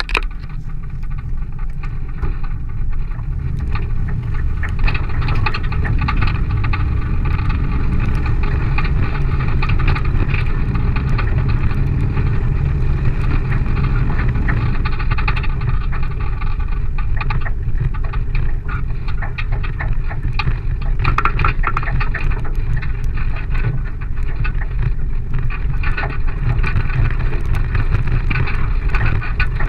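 Vehicle engine running steadily under way, a constant low rumble with no pauses or revving.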